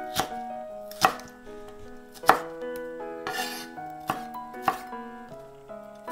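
Santoku knife chopping red bell pepper on a wooden cutting board: a handful of sharp chops, unevenly spaced about a second apart.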